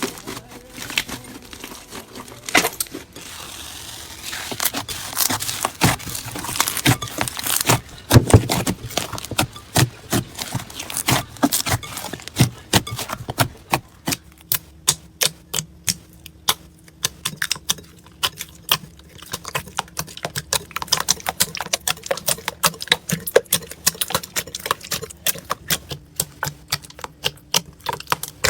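Slime being squeezed and poked by hand, giving a dense, irregular run of sharp pops and clicks, several a second. About halfway through, a faint steady hum joins in underneath.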